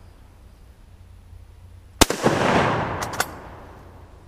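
A single shot from a Mauser bolt-action rifle firing steel-case 8mm Mauser ammunition, about two seconds in, with a long echo rolling away. About a second later come a few sharp metallic clicks as the bolt is worked.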